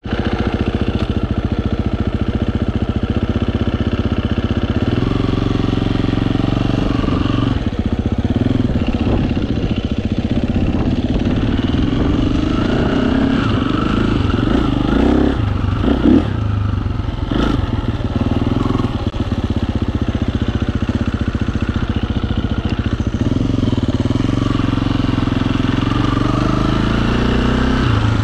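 KTM dirt bike engine running while the bike is ridden, the revs rising and falling over and over with the throttle. A sharp knock is heard about seventeen seconds in.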